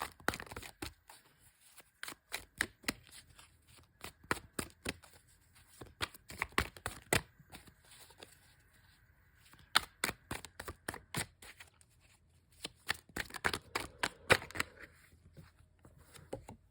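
A deck of tarot cards being shuffled by hand: many quick, irregular card snaps and riffles in several spells, with short pauses between them.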